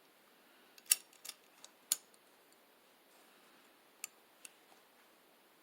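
Small, sharp metal clicks of revolver parts being handled as the mainspring is fitted up onto the hammer of a Pietta 1858 New Model Army revolver. Four clicks come about a second in, then two more near four seconds.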